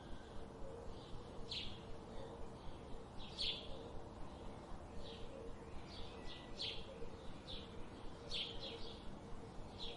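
Forest birds chirping: short, high calls, each a quick downward sweep, coming every second or so, sometimes two or three close together, over a steady background hiss with a faint steady hum.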